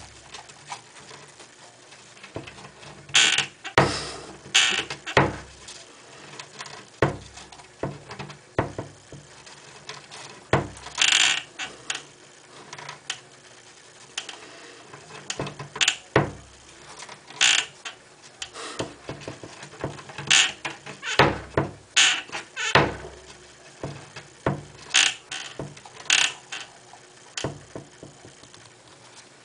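Hamster's claws scratching and scrabbling at the bottom of a wooden closet door, in short irregular scrapes and taps.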